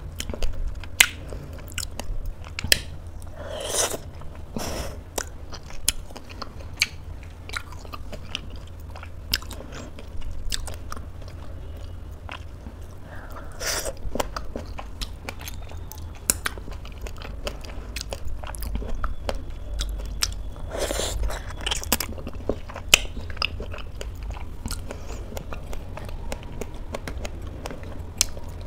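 Close-miked eating: chewing and biting with many short, sharp mouth clicks, over a steady low hum.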